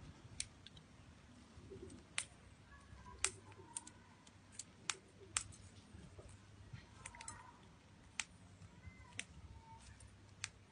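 Wild birds feeding at close range: irregular sharp clicks and taps of beaks working on seed, about one every second or so, with a few faint soft chirps.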